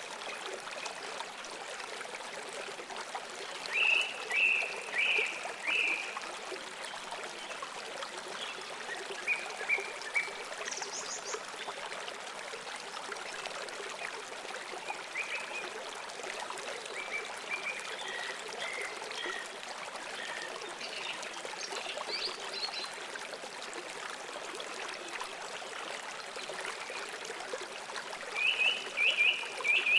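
A stream running steadily over rocks, with birds calling in short bursts of chirps several times over it; the most distinct bursts come about four seconds in and again near the end.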